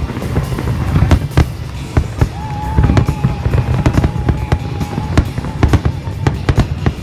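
Fireworks going off: a rapid, irregular series of sharp bangs over a continuous low rumble, with a steady high tone held for about two seconds in the middle.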